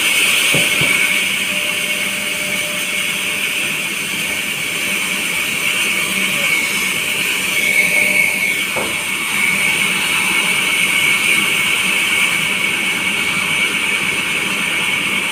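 Sawmill's large vertical band saw running, a loud steady high-pitched whir.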